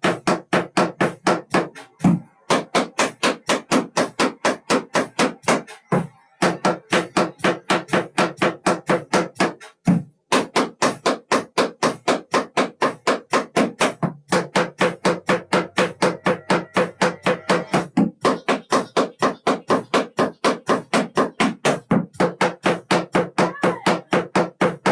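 Tap shoes striking a plywood tap board in a steady run of sharp taps, about four a second. The taps come in phrases with a brief pause about every four seconds.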